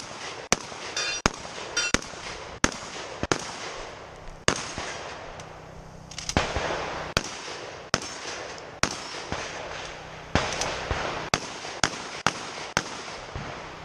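Rapid gunfire from a 3-gun match stage: about twenty shots at uneven spacing, some in quick pairs, the first from a shotgun.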